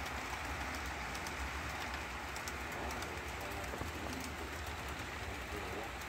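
HO-scale model freight train rolling along the track: a steady low rumble with faint scattered ticks from the wheels.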